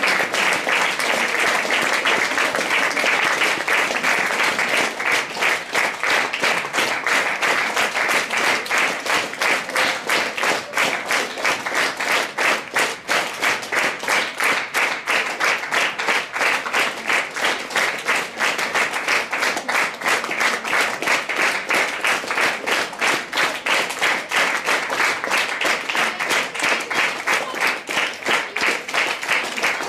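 Theatre audience applauding a curtain call; about a third of the way in the scattered applause settles into steady rhythmic clapping in unison.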